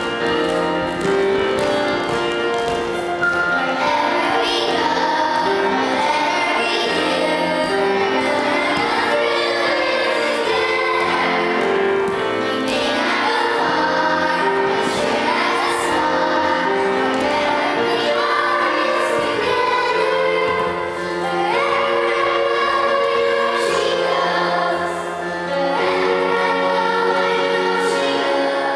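A Broadway-style song with singing plays steadily throughout, dipping briefly in loudness about three-quarters of the way through.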